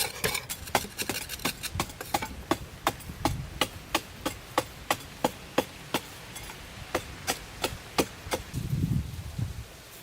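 Repeated sharp knocks of a hand tool striking, about three a second, thinning out toward the end, with a duller rustling sound shortly before the end.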